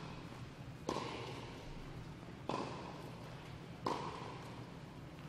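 Tennis racket strings hitting the ball three times in a rally, each hit a sharp pop that rings and echoes in a large indoor hall.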